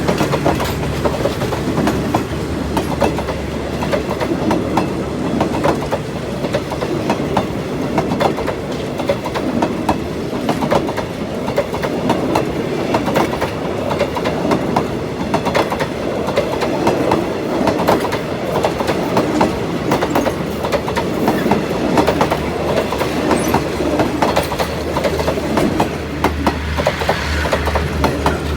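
A passenger train's coaches rolling past, a steady rush with a continuous clatter of wheels over rail joints.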